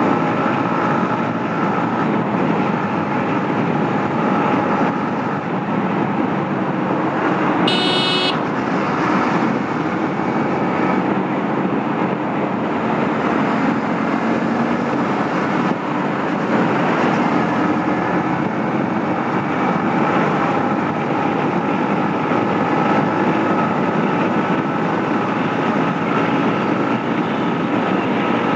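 Yamaha MT-15's 155 cc single-cylinder engine running steadily at speed in high gear under a steady rush of wind and road noise. There is one short, high-pitched vehicle horn toot about eight seconds in.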